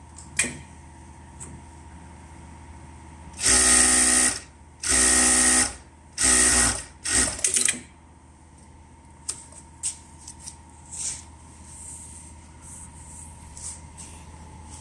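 Zoyer ZY500N-01DA computer-controlled interlock sewing machine running at speed in four short bursts of about a second each, starting and stopping as the fabric is fed through. A sharp click comes just before, and a few lighter clicks follow the sewing.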